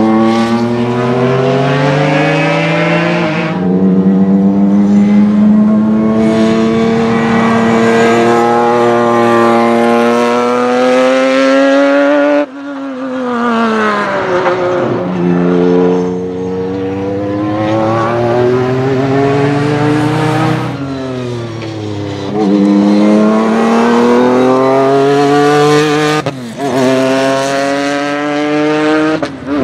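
Alfa Romeo 3.0-litre 24-valve V6 of a Lucchini CN4 EVO sports prototype at full throttle, its pitch climbing through the revs with quick upshifts and falling away as the car passes by. Several such passes follow one another, with sudden breaks between them.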